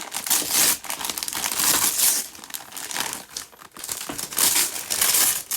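Gift wrapping being crinkled and torn open by hand as a present is unwrapped, in irregular bursts of rustling.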